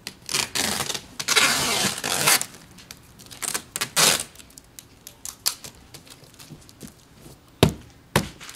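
Cardboard bike boxes being shoved and scraped against each other: two long rasping scrapes at the start, then light taps and two sharp knocks near the end.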